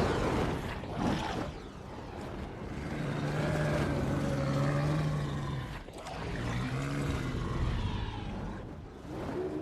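Film sound effects of dragons: a rumbling rush of noise with two long, deep held calls in the middle.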